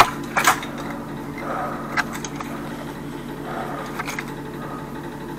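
A few sharp metal clicks and scrapes from a hand tool working inside the wall pipe stub, freeing the broken-off remnant of an angle valve, over a steady low hum.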